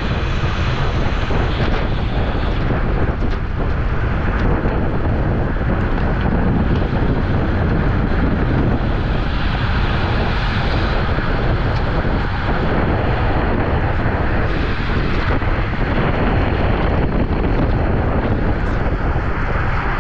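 Steady, loud wind rush buffeting the microphone of a bicycle racer's camera while riding at race speed.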